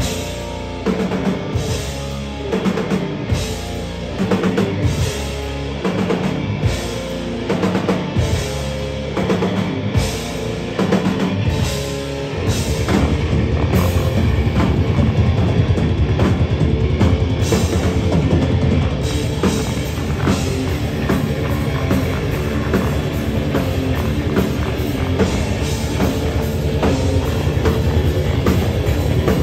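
Heavy rock band playing with drum kit and guitars. The band plays stop-start accented hits, and about twelve seconds in breaks into full, continuous, louder playing.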